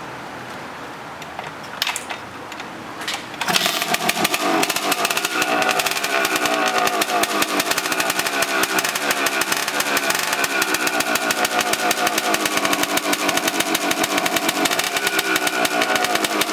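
A 1978 Harley-Davidson MX250's two-stroke single-cylinder engine being kick-started. A few clicks from the kicks come first, and it catches about three and a half seconds in. It then runs with a fast, even popping, its revs rising and falling a few times.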